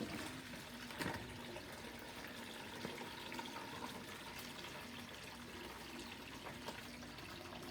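Washing machine draining its rinse water, a steady flow of water running out, with a single click about a second in.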